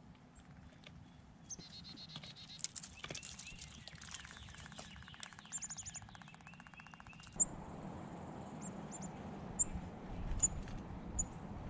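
Wild birds calling outdoors: scattered high chirps and a fast rattling trill over the first seven seconds. Then, over a steady outdoor hiss, a series of short, sharp, high chip notes.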